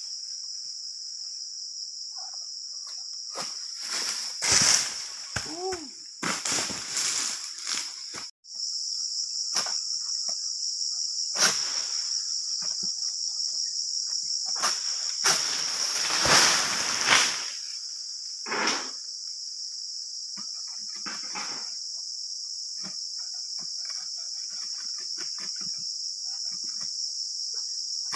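A steady, high-pitched chorus of insects buzzing. Several louder bursts of noise break in around the middle, the longest lasting about two seconds.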